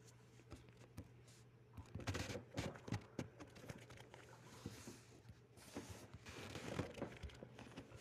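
Faint scattered rustling and light clicks, bunched around two and five to seven seconds in, over a low steady hum.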